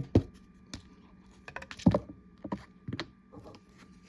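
Trading cards in plastic holders being handled on a tabletop: a dozen or so sharp, irregular clicks and knocks, the loudest about two seconds in.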